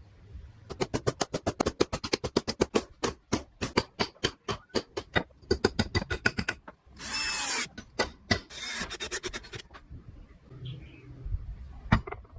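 A hand tool working wood in quick, even strokes, about seven a second, then two longer rasping strokes about seven and eight and a half seconds in, and one sharp knock near the end.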